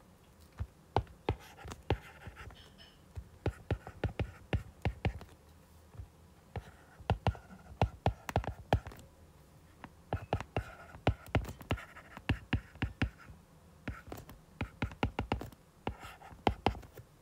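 Stylus tip tapping and scratching on a tablet's glass screen while writing by hand: clusters of small sharp clicks separated by short pauses.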